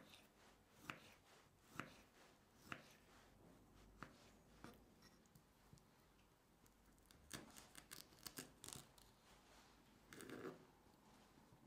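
Small kitchen knife slicing peeled kiwi and then pineapple on a wooden cutting board: faint sharp taps of the blade meeting the wood, about one a second at first, then a closer run of cuts later on.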